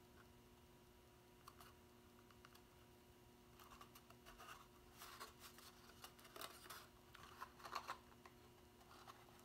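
Faint crinkling and tapping of cardstock as hands fold and press the glued flaps of a paper box closed, mostly in the second half, over a quiet room with a faint steady hum.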